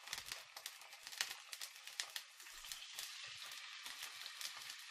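Cod loins sizzling in hot olive oil in a frying pan as they are seared: a steady hiss with many crackles and pops of spitting oil.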